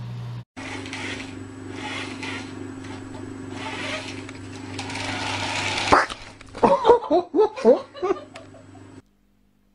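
A steady noisy hum that grows louder for several seconds, cut off by a sharp sound about six seconds in, followed by a person laughing in a string of short bursts.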